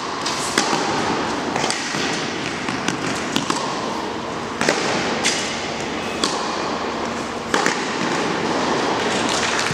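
Tennis rally on an indoor court: a series of sharp racket-on-ball hits and ball bounces, roughly one a second, over a steady hall hiss.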